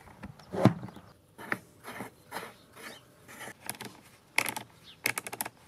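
Plastic clicks and knocks from a cordless chainsaw's sprocket cover being seated and its red locking knob turned by hand, with a quick run of clicks near the end.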